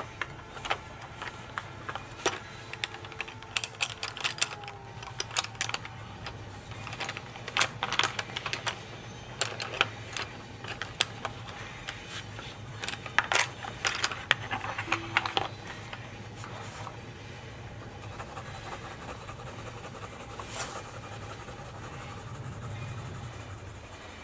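Coloured pencils clicking and rattling against each other in an open tin of Faber-Castell Polychromos pencils as they are picked through, a busy run of sharp clicks that dies down about two thirds of the way in. A steady low hum runs underneath.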